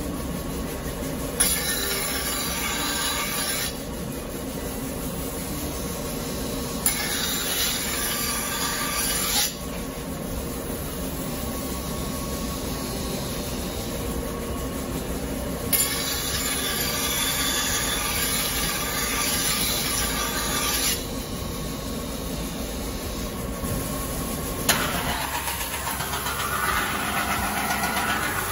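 Large rotating stone grinding wheel running with a steady rumble, broken by four spells of hissing grinding, each a few seconds long and starting with a click, as the steel of a deba knife is pressed against the stone.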